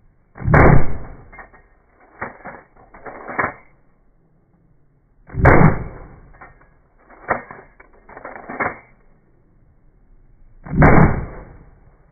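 Three shotgun shots about five seconds apart, each followed by two fainter bangs.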